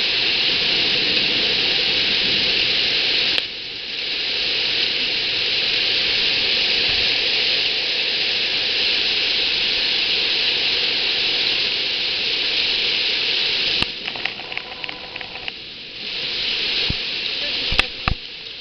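Hail and rain pelting down in a hailstorm, a steady dense hiss. It drops briefly at about three and a half seconds and again for a couple of seconds near the end, and a few sharp clicks sound in the last seconds.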